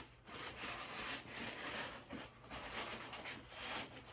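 Faint, uneven rustling and rubbing of cloth against plastic as an animatronic's arm piece is worked up into its costume sleeve.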